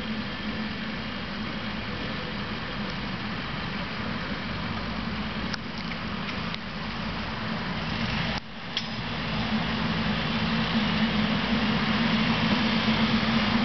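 SEPTA Silverliner electric commuter train approaching on the rails, its running noise growing louder over the last few seconds, over a steady low drone.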